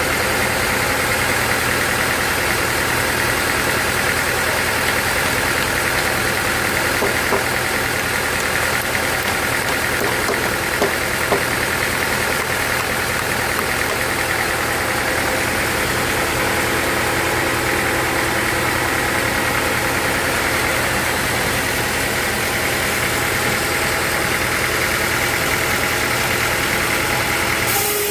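Sawmill machinery running steadily with an even engine drone, with a few light knocks about a third of the way in.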